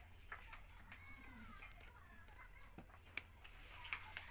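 Near silence: quiet room tone with a few faint clicks and taps, and a faint high wavering call in the background about a second in.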